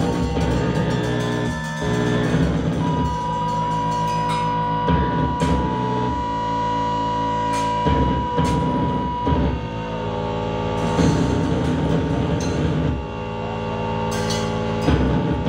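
Experimental music from modular synthesizer, effects-processed bass guitar and drums: layered held synthesizer tones over a low bass drone, with scattered drum and cymbal hits. A high held tone sounds for several seconds in the middle.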